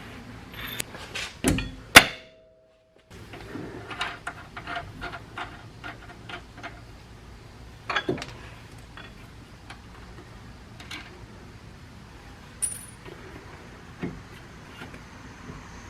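Scattered metallic clinks, taps and knocks of hand tools and parts being handled on the car's front steering linkage, with one sharp loud clank about two seconds in.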